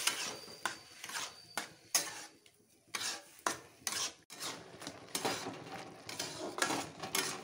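A flat spatula scraping and stirring grated carrots and milk in a metal kadhai, giving irregular scrapes and clicks of the spatula against the pan, with a short pause near the middle.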